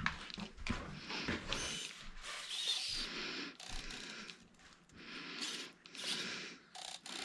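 Cat 6 cable being worked by hand at its stripped end, the twisted pairs being separated and straightened: an irregular run of short scrapes, crinkles and clicks from the plastic-insulated wires.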